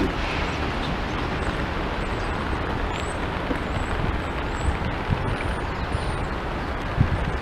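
Steady outdoor rumble and hiss of distant city traffic, with a few faint, high, short chirps of small birds.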